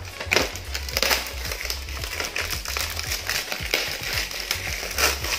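Clear plastic film wrapping being peeled and crinkled off a new motorcycle brake disc, in irregular crackles, the loudest about a third of a second in, around a second in and near the end.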